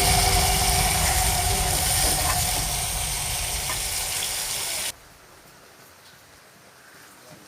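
Baim (spiny eel) fish sizzling as it fries in a pan, with a steady crackling hiss that cuts off abruptly about five seconds in, leaving only faint small sounds.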